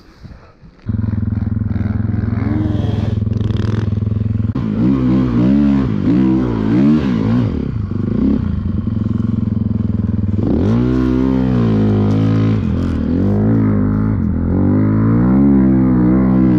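Snowbike's dirt-bike engine cutting in loud about a second in, running at a steady pitch for a few seconds, then revving up and down repeatedly.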